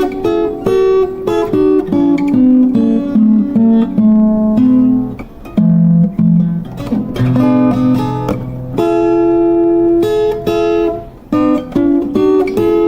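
Instrumental music on a plucked acoustic string instrument: a quick melody picked largely in two-note harmonies, with a few longer held notes about nine to eleven seconds in.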